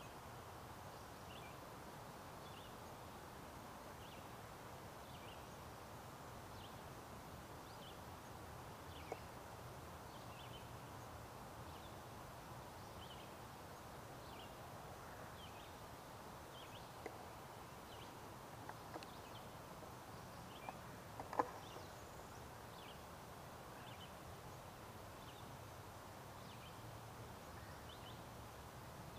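Quiet woodland ambience: a steady low hiss with a small animal's short high chirps repeating about once a second. A few faint clicks fall around the middle, the sharpest about two-thirds of the way through.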